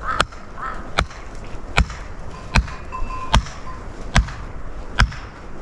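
Seven dull, heavy blows struck at a steady pace, a little under one a second.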